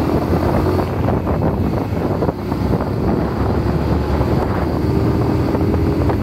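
Cruiser motorcycle engine running steadily on the move, with wind buffeting the microphone.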